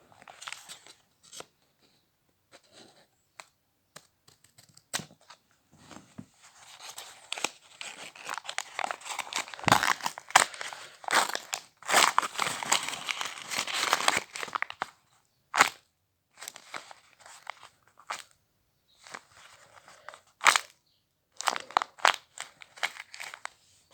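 Packaging being torn open and crinkled by hand: irregular crackling and tearing that grows dense and loud in the middle, then thins to scattered crinkles and clicks near the end.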